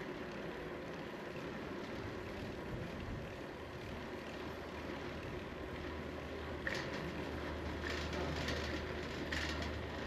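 Steady rushing noise of a bicycle ride on asphalt, from wind on the microphone and the tyres, with a low steady hum joining about halfway and scattered light rattles near the end.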